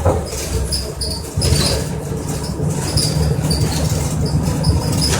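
Interior of a NABI Metro 45C transit bus: the Cummins Westport ISL G natural-gas engine drones steadily and grows stronger about a second and a half in. Many short, high squeaks and rattles come from the bus body and fittings.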